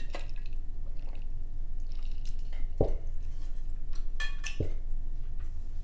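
Close-miked eating sounds: wet mouth clicks and smacks while chewing. Two sharper clicks stand out, about three and four and a half seconds in.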